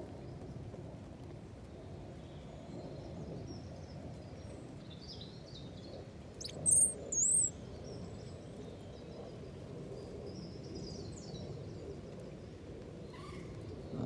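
A small songbird twittering in thin, high phrases over steady low background noise, with two loud, sharp high chirps close by about seven seconds in.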